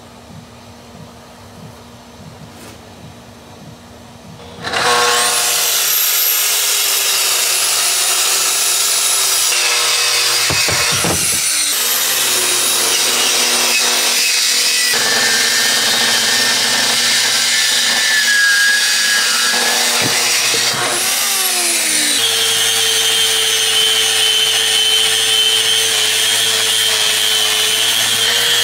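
A track saw spins up with a rising whine about five seconds in and cuts through a padauk hardwood slab, stopping and starting again partway. About three-quarters through, a random orbital sander takes over, running steadily with a constant whine against the slab's edge. The first few seconds before the saw starts are quiet.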